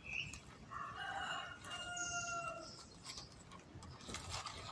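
A rooster crowing once, starting about a second in and ending in a held note that lasts about two seconds.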